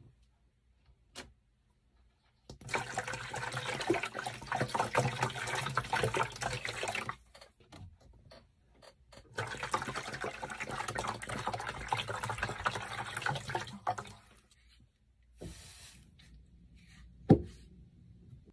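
Liquid poured from a plastic bottle into a large wooden bowl, in two pours of about four to five seconds each. Near the end comes a brief noise and then one sharp knock.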